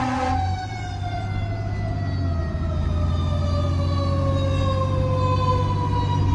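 Fire engine siren heard from inside the cab, its pitch falling slowly and steadily throughout, over the low drone of the truck's engine. A second steady tone cuts off about half a second in.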